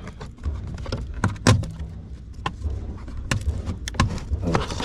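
Scattered clicks and knocks of a Torx screwdriver and plastic interior trim being handled and worked loose, over a steady low hum. The loudest knock comes about one and a half seconds in.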